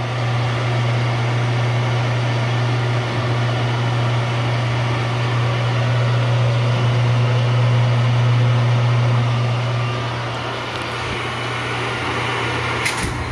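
Clausing Colchester 1550 engine lathe running under power, a steady gear-train hum with constant overtones. It grows a little louder through the middle and eases off later, with a brief click near the end.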